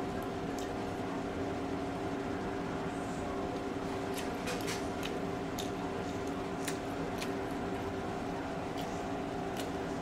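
Close-up eating sounds: chewing with a handful of short, sharp mouth clicks and smacks, most of them in the second half. A steady electrical hum with a few fixed tones runs underneath.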